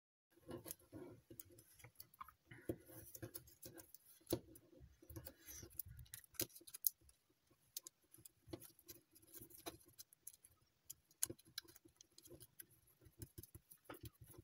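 Faint crinkling and small irregular clicks of gold foil chocolate-wrapper paper being folded and creased by hand.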